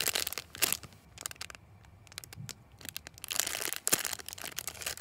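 Clear plastic bag crinkling as a foam croissant squishy is squeezed inside it. The crackling comes in bunches, heavy in the first second and again about three seconds in, with only light rustling between.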